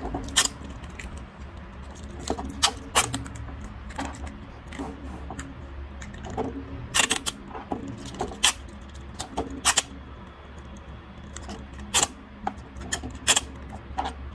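Kapton tape being pulled off its roll and wrapped around a pack of four cylindrical LiFePO4 cells: about a dozen irregular sharp crackles and clicks as the tape unrolls and the cells are handled.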